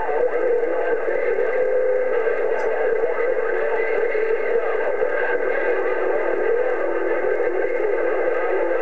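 CB radio receiver picking up a weak, unintelligible transmission buried in steady static, with several steady whistling tones over the hiss.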